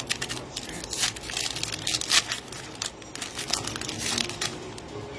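Foil wrapper of a retail trading-card pack crinkling and tearing as it is opened, in a run of irregular scratchy crackles.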